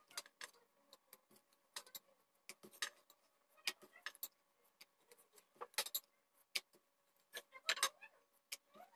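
Light, irregular clicks and knocks of a wooden rolling pin against a wooden rolling board (chakla) as a puri is rolled out, a few each second, over a faint steady hum.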